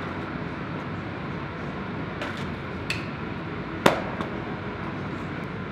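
A long pole knocking a discus loose from the throwing-cage netting: a couple of light taps, then one sharp knock about four seconds in as the discus comes down onto the floor, over a steady room hum.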